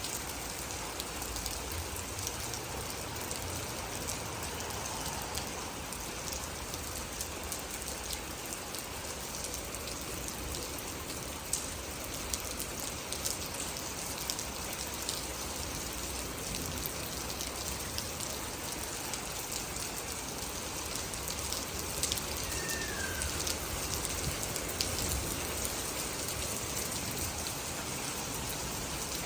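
Steady rain falling, with many separate drops ticking through it.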